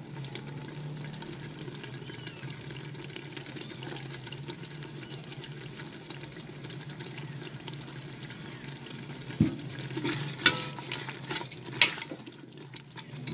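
Mutton liver and lung curry cooking in a pot with a soft, steady sizzle over a low hum. From about two-thirds of the way in, a steel spoon stirs the dish, scraping and clinking several times against the pot.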